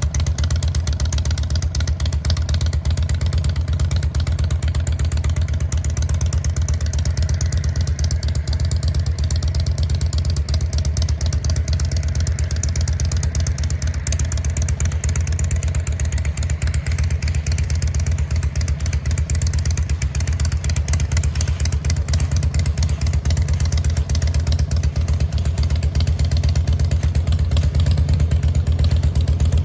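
Harley-Davidson motorcycle's V-twin engine running steadily while riding, getting a little louder near the end.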